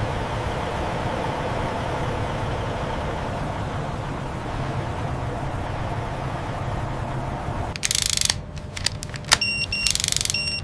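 Steady mechanical running noise. About eight seconds in, a short loud burst of hiss and a few sharp clicks follow, and electronic beeps sound near the end.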